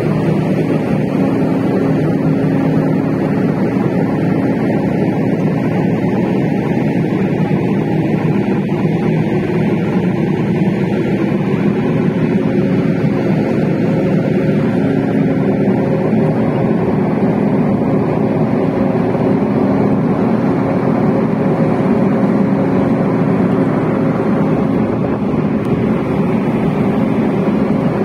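Steady drone of a cargo ship under way, heard from the open deck: a hum with a few held tones from its engine and machinery over an even rushing noise.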